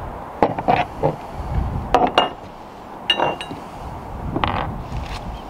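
A corroded metal deck cleat and its bolts being handled and set down on a fibreglass deck: a series of knocks and clinks, some with a brief metallic ring, then a short scrape about four and a half seconds in.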